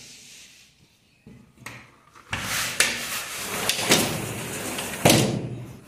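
Glass sash of a black aluminium three-track sliding window being slid along its track by hand. A scraping, rolling run starts about two seconds in, with small knocks along the way and one sharp knock near the end.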